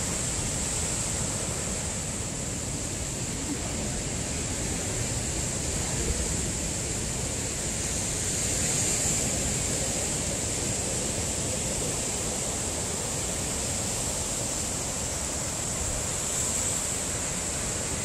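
Heavy ocean surf breaking over rocks and washing up a sandy beach: a steady rush of churning water that swells a little about halfway through and again near the end.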